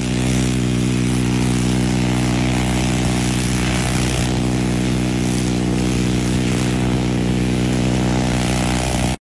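Minigun firing one long continuous burst of rounds, heard as a steady low buzz, which cuts off abruptly near the end.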